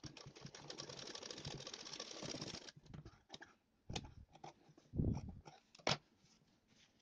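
Sewing machine stitching through layered blouse fabric in a fast, even run of needle strokes for about two and a half seconds, then stopping. After that, soft rustles and a few light knocks as the fabric is handled at the machine.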